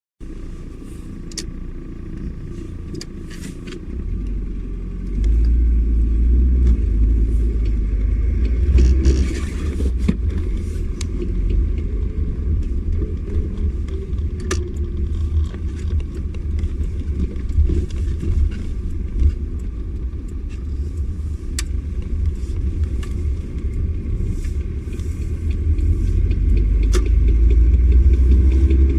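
Volkswagen Passat B3 under way, with a steady low engine and road rumble that builds as it accelerates. Scattered sharp knocks come through now and then: the knock under throttle from the left half-shaft, which the owner suspects is a worn CV joint.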